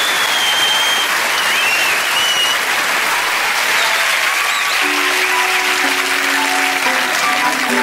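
Audience applauding with whistles and cheers. About five seconds in, a light plucked guitar tune begins over the applause.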